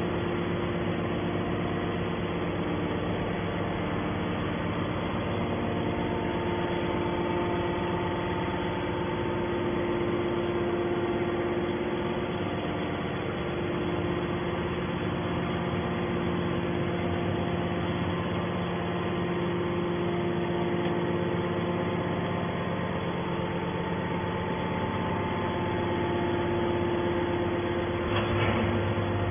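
Hydraulic scrap metal baler's power unit running steadily, a constant mechanical hum with several held tones. There is a brief knock about a second before the end.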